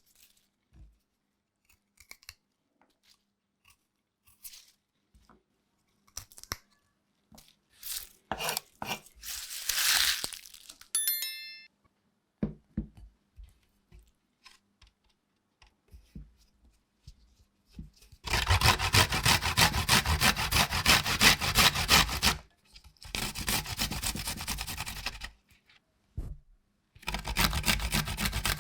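Ginger and garlic being prepared in a kitchen: scattered small clicks and knocks, then three long bursts of a harsh, tearing, grinding noise in the second half.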